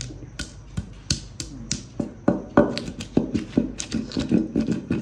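A quick, irregular series of sharp taps and clicks, a few a second, growing louder about two seconds in.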